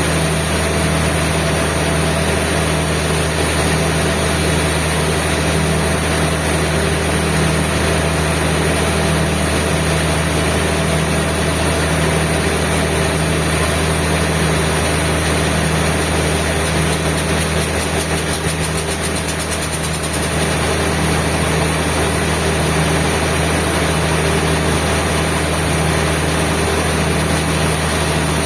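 Sawmill machinery's engine running steadily with an even low hum and no change in pitch; the level dips slightly about two-thirds of the way through.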